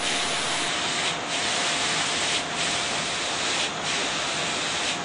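Filtered water rushing out of a rotary drum filter over its side weir: a steady hiss with a faint steady tone underneath. The hiss dips briefly about every second and a quarter.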